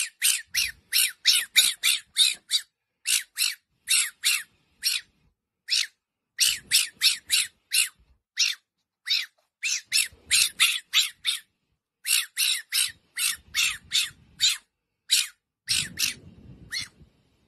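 Fennec fox crying: a long series of short, high-pitched squeaking calls, about three to four a second, in runs broken by brief pauses.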